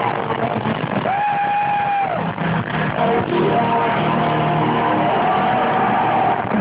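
Live rock band playing loudly, with electric guitar and vocals; a single note is held for about a second and bent down at its end.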